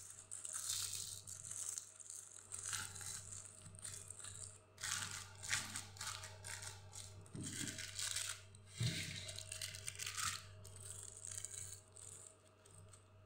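Aluminium foil crinkling and crumpling in irregular bursts as hands fold and crimp it closed around a marinated fish, with a single knock about nine seconds in.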